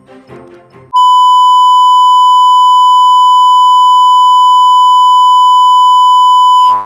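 A loud, steady electronic beep tone, buzzy with overtones, starts about a second in. It holds one pitch for nearly six seconds, then cuts off just before the end.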